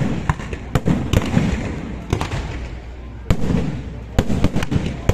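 Fireworks show: aerial shells bursting in sharp bangs, one about every second with quick clusters of several, and crackling and rumble between them.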